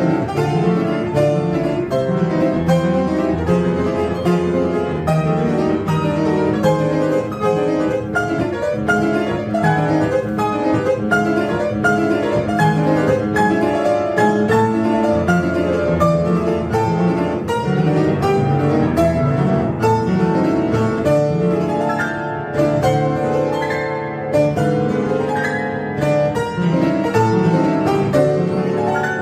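Live instrumental music from a street performer: a continuous run of quick, closely spaced notes with lower notes held beneath.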